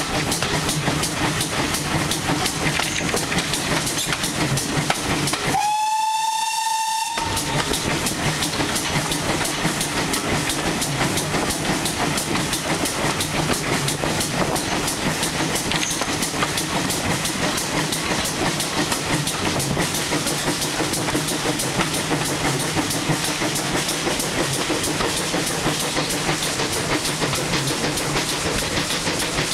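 Steam tank locomotive working hard at the head of a train, heard from an open carriage window behind it: steady exhaust beats and wheels on the rails, with a single steam whistle blast of just over a second about six seconds in.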